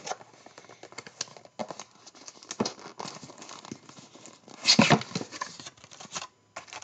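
Rustling and crinkling of cardboard and plastic wrappers as a trading-card hobby box is opened and its foil packs are taken out, with small clicks throughout and a louder rustle about five seconds in.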